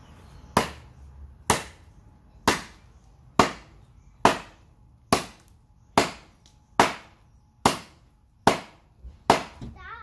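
A Derringer khukuri chopping into a stick of wood held on a stump, about eleven sharp strokes at a steady pace of roughly one a second.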